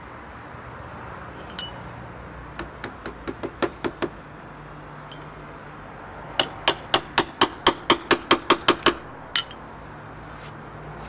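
Hammer tapping a copper nail into a chimney's mortar joint to hold the lead flashing in: sharp metallic taps with a slight ring. First comes a single tap, then a run of about eight quick taps, and later a longer run of about fourteen taps, around five a second.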